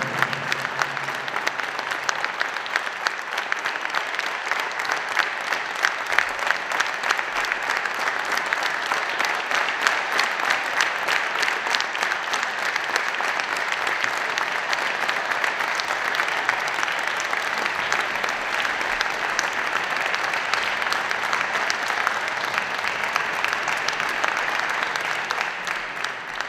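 Audience applauding: a long, steady round of clapping that fades out near the end.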